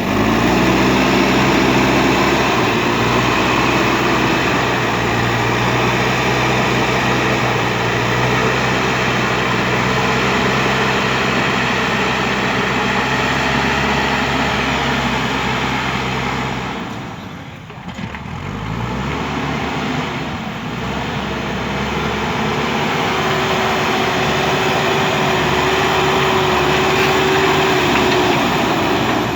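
JCB 3DX backhoe loader's diesel engine running steadily, its speed dropping about two-thirds of the way through and then revving back up. A higher steady tone joins the engine sound in the later part.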